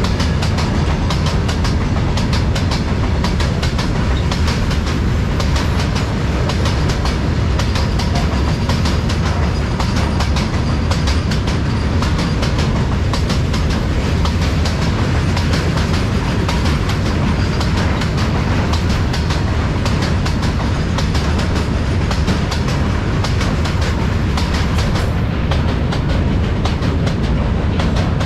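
Freight train rolling past at speed, its wagon wheels clattering steadily over the rail joints in a dense run of clicks.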